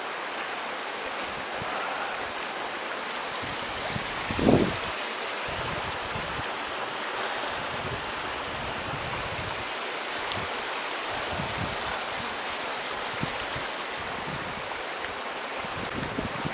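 Small mountain stream rushing steadily over rocks in a little cascade. A brief thump about four and a half seconds in stands out above it.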